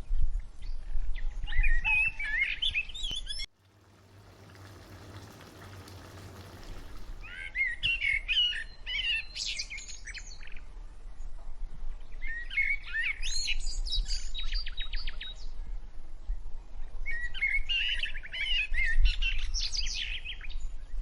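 Small birds chirping and singing in bursts of quick, twittering phrases. About three and a half seconds in the sound cuts off abruptly, a faint hiss rises for a few seconds, and then the chirping phrases return three times.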